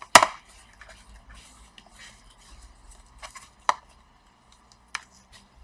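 A few sharp clicks and taps of small screws and a screwdriver on a laptop's plastic casing as the screws go back in. The loudest click comes right at the start, with a few fainter taps later.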